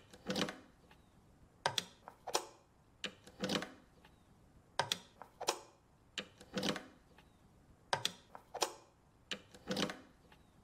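Guitar cable jack plugs clicking and knocking into input sockets: about a dozen quiet clicks and knocks at irregular spacing, many in close pairs, some with a short ring.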